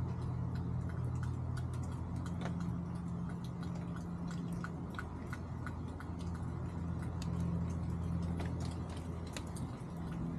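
Chickens pecking at the ground and feed: many short, irregular sharp ticks, over a steady low hum.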